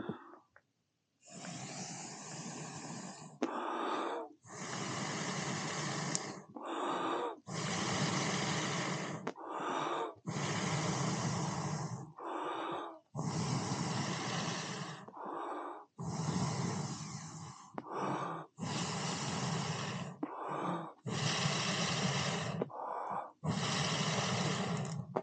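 A person blowing hard and repeatedly on a smouldering campfire: about nine long blows, each with a quick breath in between. The fire is starved of air and only keeps going while it is blown on.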